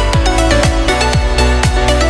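Electronic dance music with a steady kick drum about twice a second, quick hi-hat ticks between, and sustained synth notes.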